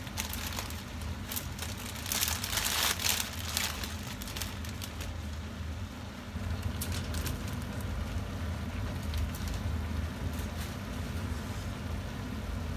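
Plastic bag of dried pancit canton noodles crinkling and the noodles rustling as they are tipped out onto vegetables in a frying pan, loudest about two to three and a half seconds in. Under it are a light crackle from the pan and a steady low hum.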